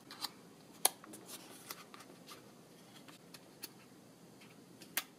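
Faint, scattered clicks and light rustles of fingers handling a paper packaging tray and its paper tabs, with one sharper tick about a second in.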